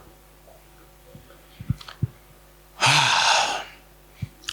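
A loud, breathy exhale like a sigh, close to a microphone, lasting just under a second about three seconds in, with a couple of soft thumps shortly before it.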